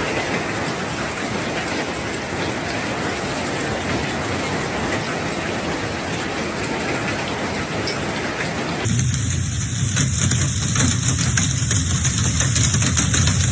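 Steady hiss of a heavy storm downpour pelting down. About nine seconds in it cuts abruptly to a louder recording: a low steady drone under a bright hiss dotted with rapid ticks.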